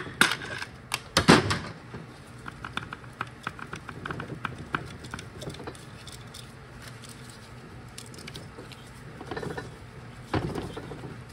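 Hammer blows on a punch driving a rust-seized manual valve shaft through a Toyota AB60E transmission's aluminium case. A few hard strikes come in the first second and a half, then a run of lighter quick taps, and one more knock near the end.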